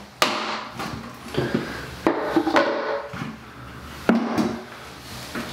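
Hollow plastic knocks and scrapes of a five-gallon plastic bucket and its snap-on lid being handled: the lid coming off, then the bucket being lifted and set down. The sharpest knock is just after the start, with more clatters about two and four seconds in.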